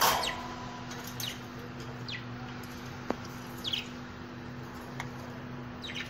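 Pet budgerigars chirping in a cage: one loud call at the very start, then short falling chirps about once a second. A sharp click about three seconds in, over a steady low hum.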